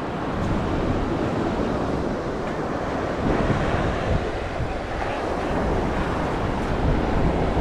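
Steady rush of surf and wind, with gusts of wind buffeting the microphone.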